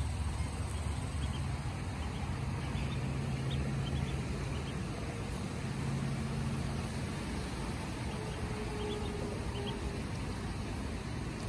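Ducklings giving a few faint, short high peeps in two small clusters, over a steady low hum and hiss.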